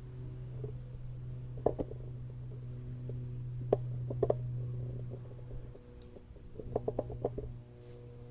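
Wood fire crackling, with sharp pops about 2 s and 4 s in and a quick run of them near the end, over a steady low hum.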